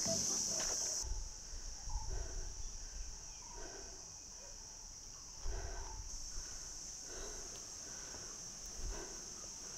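Steady high-pitched drone of insects chirring in dry forest, with faint footsteps on a dirt and stone path at walking pace.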